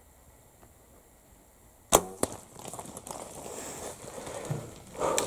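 Mathews compound bow shot: a sharp, loud crack of the string releasing the arrow about two seconds in, a second shorter snap a moment later, then rustling and scuffling as the hit whitetail buck runs off through the brush.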